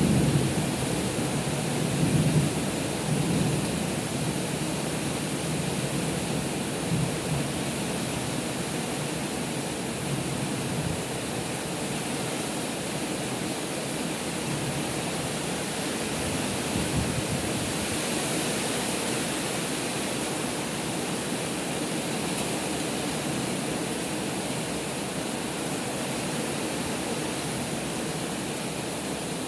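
Heavy rain pouring down steadily. A low rumble of thunder dies away over the first few seconds.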